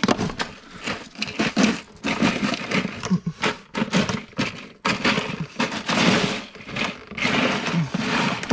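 Cooked mud crabs being pushed into a cooler of ice with metal tongs: shells, ice and tongs clatter and knock irregularly, mixed with rustling and scraping.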